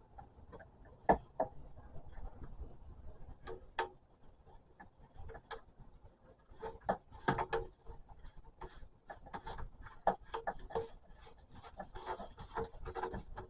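Hands handling and refitting plastic dust-separator parts: scattered clicks, knocks and rubbing, with a sharper knock about a second in and busier clicking and scraping in the second half.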